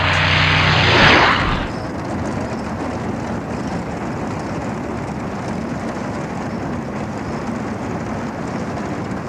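Large corrugated-steel hangar doors being pushed open by hand, rumbling as they slide along their track. A louder grinding burst comes over the first second and a half as they get moving, then a steady rumble.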